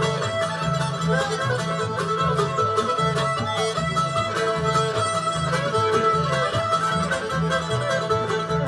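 Live old-time string band playing an instrumental passage: fiddle carrying the tune over strummed guitar and the steady walking notes of an upright bass.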